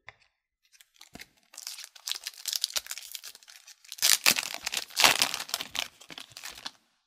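Foil wrapper of a Tim Hortons Upper Deck hockey card pack being torn open and crinkled by hand, with louder rips about four and five seconds in.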